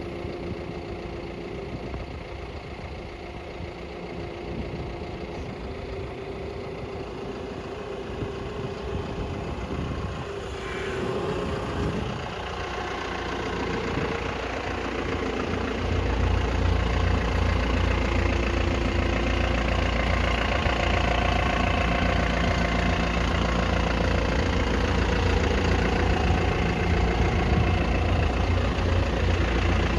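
Hydrema 906F backhoe loader's diesel engine idling steadily. About halfway through it gets louder, with a strong low throb that carries on.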